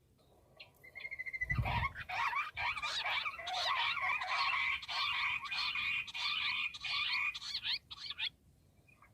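Bush quail calling: a fast, dense run of chattering notes that starts about a second in and breaks off sharply near the end, with a brief low thump shortly after it begins.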